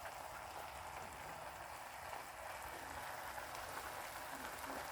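Faint, steady crackle and fizz of a pot of green pea stew simmering on medium-low heat.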